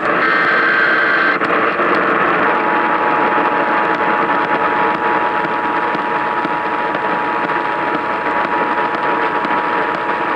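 Hissing radio static under an Emergency Alert System two-tone attention signal that starts about two and a half seconds in and holds steady to the end. A short single high tone sounds through the first second and a half.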